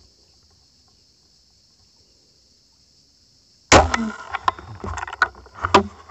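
Homemade rubber-band-powered fishing crossbow firing: a sudden sharp snap about three and a half seconds in, followed by about two seconds of rattling and clicking.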